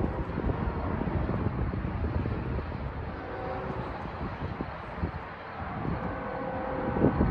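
Locomotive horn sounding a chord, briefly and faintly about three seconds in and then again from about six seconds in, over a steady low rumble.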